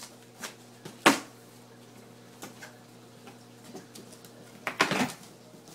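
A box and its packaging being handled: a few sharp knocks and clatters, the loudest about a second in and a cluster near the end, over a steady low hum.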